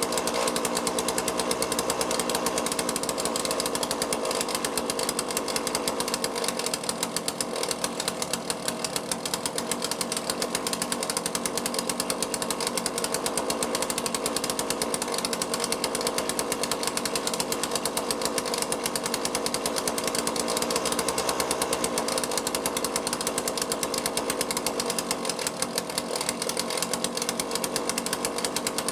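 Two-stroke chainsaw engine, running on a freshly rebuilt and adjusted Walbro carburettor, running steadily with a rapid, even firing rhythm.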